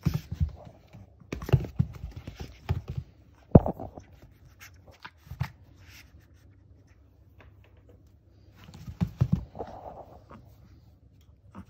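Shih Tzu puppy play-fighting with a hand on a vinyl mat: irregular thumps and scratching of paws and fingers on the mat, in several short flurries, with the puppy's panting.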